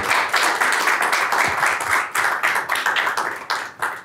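A small audience applauding: many hands clapping densely, thinning out and dying away near the end.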